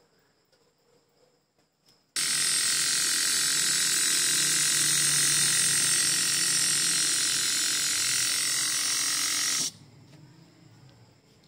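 Small electric air compressor with a finned cylinder and coiled air hose, running steadily with a loud hiss and buzz. It starts suddenly about two seconds in and cuts off abruptly about seven and a half seconds later.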